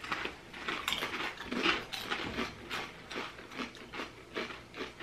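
Kettle-cooked potato chips crunching as they are chewed: an irregular run of sharp crunches, about three a second.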